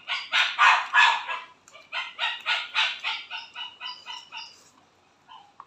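A rapid series of loud animal calls, about four a second, with a brief break, then weakening and stopping near the end.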